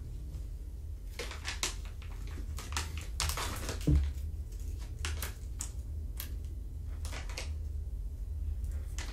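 Scattered light clicks and rustles of handling and movement, with one thump about four seconds in, over a steady low hum.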